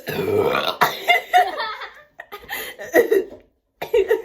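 A person burping after chugging Sprite: a deep burp about a second long at the start, the carbonated soda forcing gas back up. Short broken voice sounds follow.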